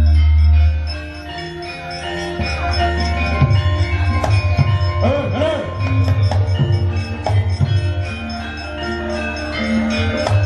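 Javanese gamelan playing: bronze metallophones ringing a steady melody over gongs and drum strokes, with a deep gong hum that fades about a second in and swells again near the end.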